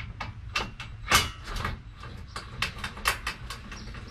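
A string of sharp, irregular clicks and knocks, a few a second, the loudest about a second in: hand work on the RV awning arm and its mounting hardware.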